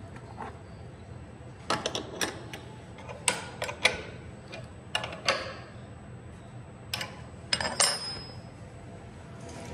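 Steel spanner clinking on the nut and threaded stud of a hold-down clamp as it is tightened to fix a wooden workpiece to a CNC router bed. Sharp metallic clicks come in several short clusters.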